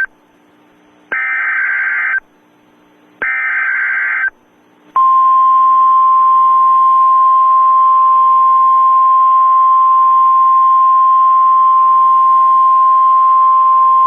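Emergency Alert System header data bursts, two harsh buzzy digital squawks about a second each, followed about five seconds in by the long, steady, single-pitched attention tone over a hiss of static.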